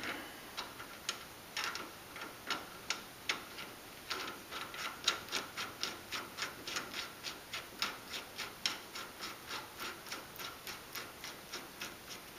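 Steel spindle nut being spun on by hand onto the threaded spindle of a car's front wheel hub, giving light metal ticks, scattered at first and then about four a second from about four seconds in.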